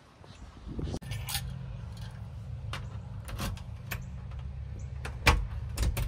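Keys and a door latch clicking and knocking several times over a steady low hum that comes in abruptly about a second in; the loudest knock falls a little after five seconds, with two more just before the end.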